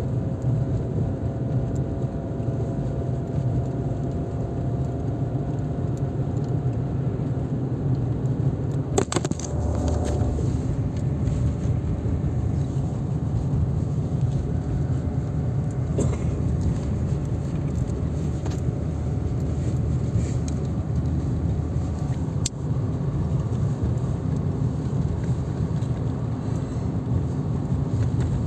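Car running steadily along a snow-packed road, heard from inside the cabin: a constant low rumble of engine and tyres. A few sharp clicks or rattles cut through it, the clearest about nine seconds in.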